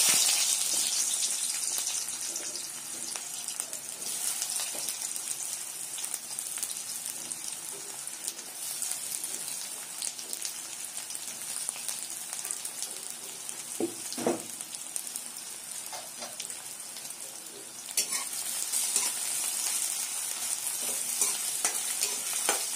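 Sliced onions sizzling as they fry in hot oil in a metal kadhai, loudest in a burst as they go into the oil and then settling to a steady hiss. A spatula scrapes and stirs them, with a few clicks, in the last few seconds.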